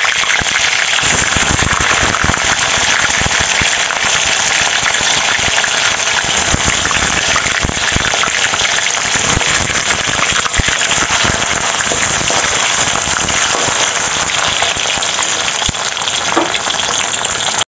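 Pieces of tofu frying in hot oil in a wok: a steady, dense sizzle that cuts off suddenly at the end.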